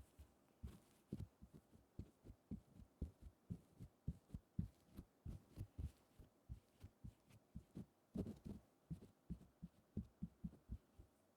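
Soft, irregular low taps close to the microphone, about two to four a second, with a slightly louder cluster near the eight-second mark.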